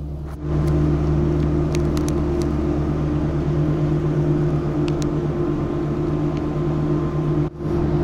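Steady mechanical hum of a gondola lift station's drive machinery: a low drone held at one pitch, with a few faint clicks above it. It dips out briefly near the end.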